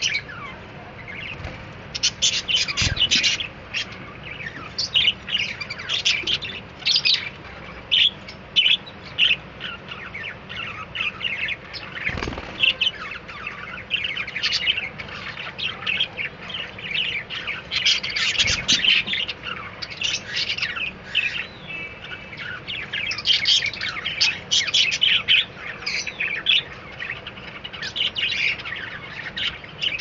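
Budgerigars chirping: a continuous stream of short, high, rapid chirps in bursts, with a few soft low thumps.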